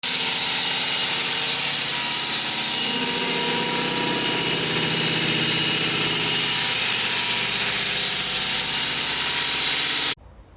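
Hilti power saw running loud and steady, then stopping abruptly about ten seconds in.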